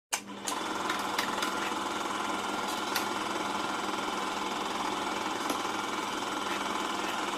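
Steady mechanical hum and hiss of gym room noise with a low steady tone, broken by a few light clicks and knocks.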